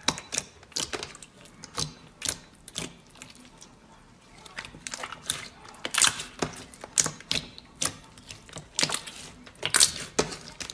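Slime being pressed and squeezed by hand, giving off irregular sharp clicks and pops. The clicks thin out about three seconds in, then come thicker from about five seconds on.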